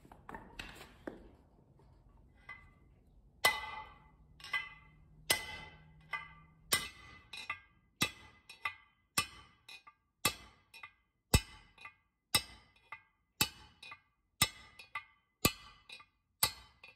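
Hand hammer striking a punch against a tapered-roller bearing race in a steel chaincase gearbox housing, driving the race out of its bore. The sharp metallic blows start about three and a half seconds in and come steadily, one or two a second, each with a short ring.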